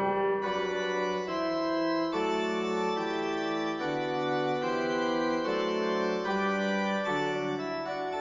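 Background music: slow, held organ-like chords that change about once a second.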